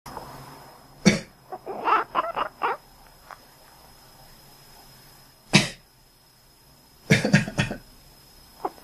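A person sneezes about a second in and again at about five and a half seconds, and each time a cat answers with a quick run of short meows.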